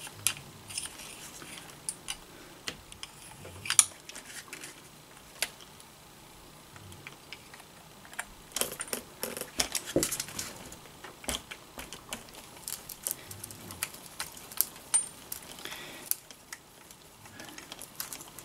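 Scattered small clicks and light metallic clinks of hands working screws and small parts on an RC truck chassis while removing its motor, with a few sharper taps, the clearest about four seconds in and around nine to eleven seconds in.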